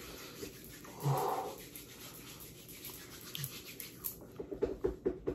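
A man's short pained whimper about a second in, a reaction to the burn of extremely spicy noodles, then a rapid run of short clicks near the end.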